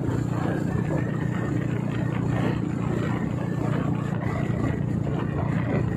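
Motorcycle engine running steadily at a cruise, with wind noise over it.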